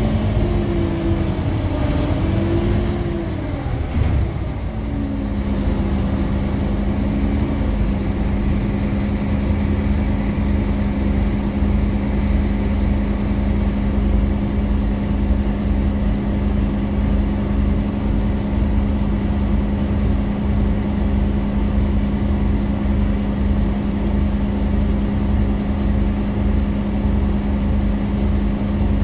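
Scania K310UA articulated bus's diesel engine, heard from inside the cabin. It falls in pitch as the bus slows to a stop, then idles steadily with a constant hum from about five seconds in.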